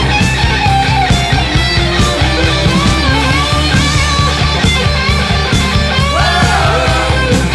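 Rock music with guitar over a steady beat.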